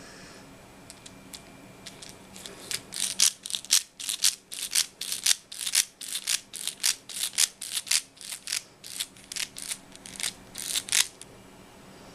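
A rapid series of scratchy mechanical clicks from a small mechanism, about two to three a second, starting a few seconds in and running for about eight seconds before stopping.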